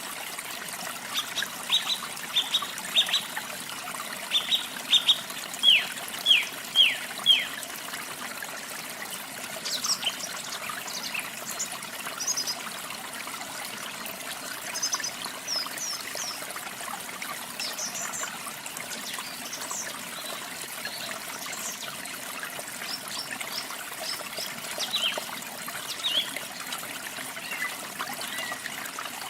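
Steady trickling and splashing of falling water, with songbirds over it: a quick series of down-slurred whistled notes in the first several seconds, the last ones loudest, then scattered higher chirps through the rest.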